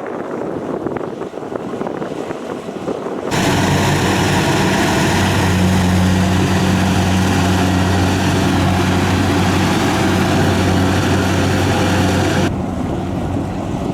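Rice combine harvester engine running steadily with wind on the microphone. About three seconds in, the sound cuts abruptly to a louder, smoother engine drone. It cuts back to the rougher, windier sound near the end.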